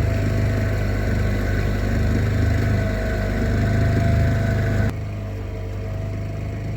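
Small 5-horsepower outboard motor running steadily at cruising speed, a deep hum with a whine above it; about five seconds in the sound drops abruptly to a quieter, thinner run.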